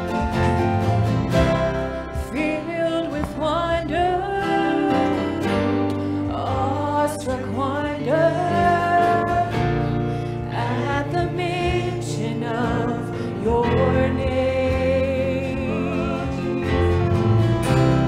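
Live church worship band playing a slow song, with acoustic guitars, keyboard and light drums under a singing melody line.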